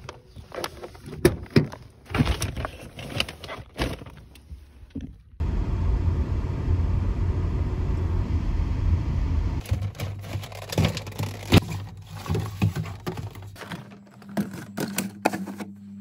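Rustling and clicking as a shopping bag of packaged cakes is handled. About five seconds in, a car's steady low road rumble starts abruptly, heard from inside the cabin, and lasts about four seconds. Then come scattered clicks and knocks, and near the end a low steady refrigerator hum.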